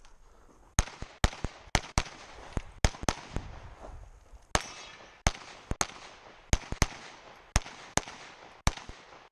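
Pistol shots fired rapidly during a competition stage: about twenty sharp reports, many in quick pairs, with short pauses between groups, starting a little under a second in. The gun is likely a 9mm competition pistol.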